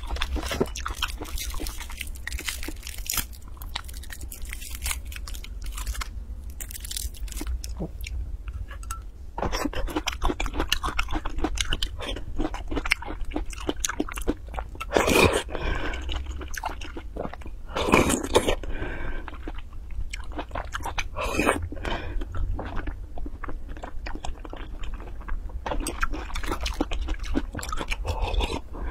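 Close-miked eating sounds: chewing and slurping spicy broth and food from a glass cup, with a few louder slurps in the second half, over a steady low hum.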